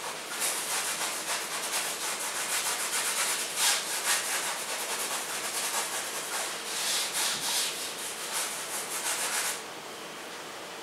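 Paintbrush scrubbing acrylic paint back and forth across a stretched canvas, blending the blue of the sky: a quick, scratchy rubbing made of many rapid strokes that stops about a second before the end.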